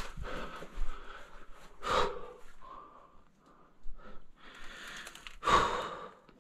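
A man breathing hard as he crawls through a tight tunnel, with two loud, huffing breaths: one about two seconds in and another near the end.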